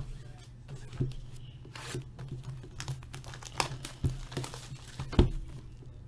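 Plastic shrink-wrap being torn and peeled off a sealed box of trading cards: irregular crinkling and crackling, with a sharp knock about five seconds in.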